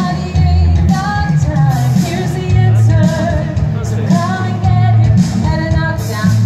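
Pop song with a woman singing over a heavy bass line.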